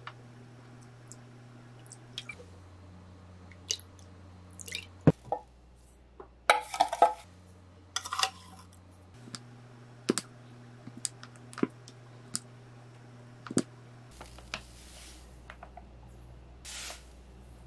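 Marinade being mixed in a glass bowl: soy sauce poured in with splashing and dripping, and seasonings spooned in. Scattered sharp taps and clinks of spoon and containers against the glass run over a low steady hum.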